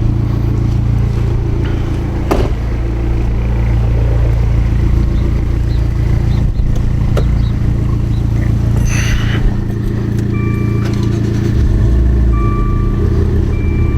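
Engines of a Fiat 500 Abarth (1.4-litre turbo four) and a Maserati Ghibli Q4 (twin-turbo V6) idling steadily side by side. There is a sharp click a couple of seconds in, and a few short electronic beeps in the second half.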